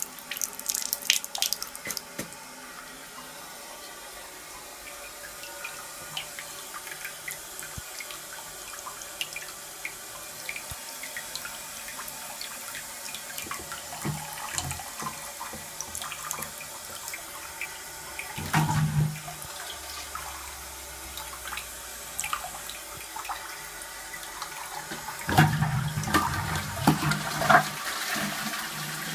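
Water hissing steadily as an Armitage Shanks Sandringham toilet cistern refills through its float valve, with louder, busier spells about two-thirds in and near the end.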